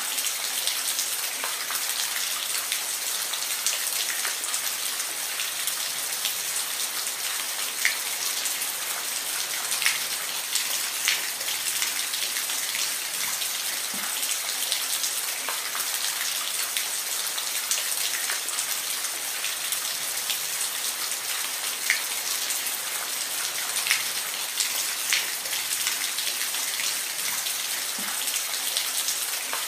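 Steady rain falling, a continuous hiss with scattered louder individual drop hits every second or two.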